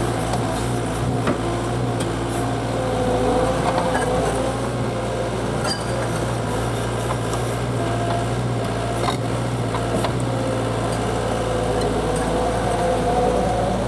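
Diesel engine of a heavy truck or machine running steadily under way, with a wavering whine over the drone and a few sharp knocks.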